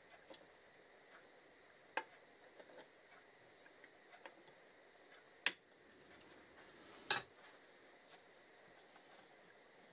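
Small metallic clicks and clinks of circlip pliers fitting a steel circlip onto a gear shaft in an engine crankcase, scattered and irregular, with two sharper clicks about halfway and about two thirds through.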